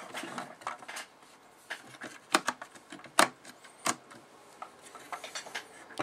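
Plastic ejector latches on the RAM slots of a 2008 Mac Pro's memory riser card being flicked open one after another: a series of sharp, irregularly spaced clicks, the loudest between about two and four seconds in.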